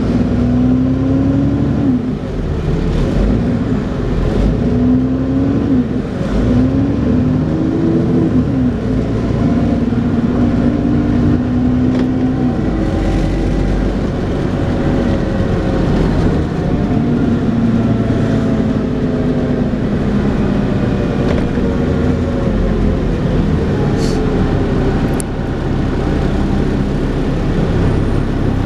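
Dennis Trident 2 double-decker bus accelerating, with a whining drivetrain note that enthusiasts call "hoovering". The engine note climbs and drops back at three gear changes in the first nine seconds, then runs steadier with slow rises and falls.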